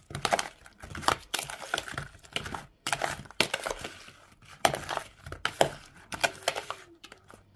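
A metal spoon stirring zucchini chunks coated in mayonnaise in a plastic bowl: irregular scrapes and clicks of the spoon against the bowl and the pieces.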